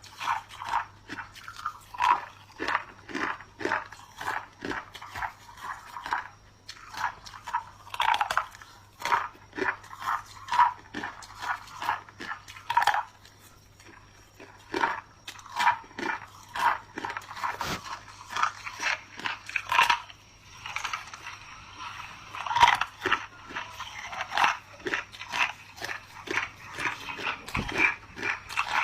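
Clear ice chunks being bitten and chewed close to the microphone: a rapid run of crisp crunches, about two a second, with a short pause about halfway through.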